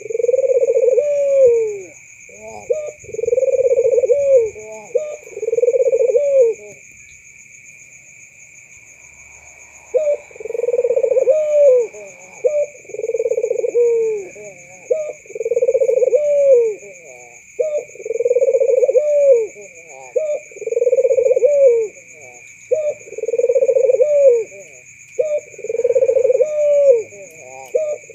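White, red-eyed Barbary dove cooing over and over: a rolling coo about every second and a half, each ending in a short rise and fall. The coos break off for about three seconds roughly six seconds in, then resume. Two steady high-pitched tones run underneath throughout.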